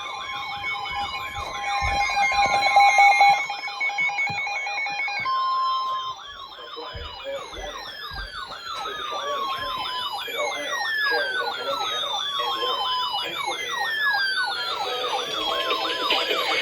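Several electronic sirens sounding at once: fast yelping warbles run all the way through, layered with long wailing tones that repeatedly fall in pitch. Steady held tones sound alongside them for the first five seconds or so and are loudest around two to three seconds in.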